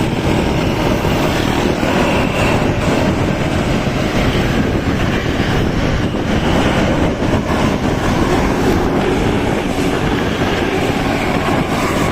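Loud, steady vehicle rumble with no horn tune sounding.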